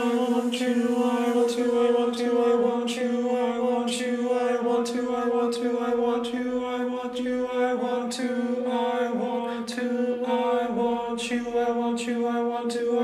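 A cappella choir singing a steady sustained chord, a low drone note held with its octave, cut through by short sharp accents about once a second.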